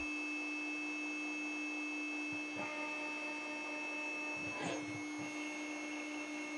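CNC mill spindle running at a steady speed with an even, high-pitched whine, held during the programmed five-second dwell that lets it come up to speed before cutting.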